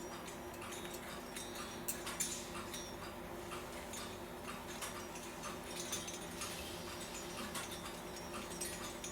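Faint, unevenly spaced light metallic clicks and ticks from the astronomical skeleton clock's time-train mechanism, over a steady low hum.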